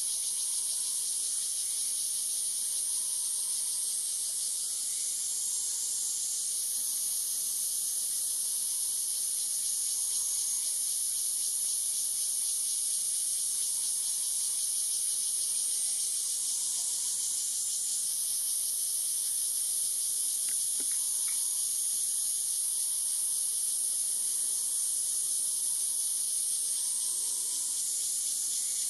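Dense chorus of insects, a steady high-pitched hiss that shifts slightly in pitch a few times.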